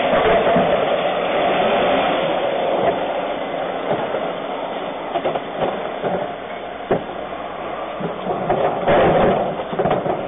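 Refuse collection lorry running at the kerb, a steady mechanical drone with a constant whine from its engine and hydraulics. A few sharp knocks of plastic boxes and bins being handled, and a louder, busier stretch near the end as a wheelie bin is brought to the lift.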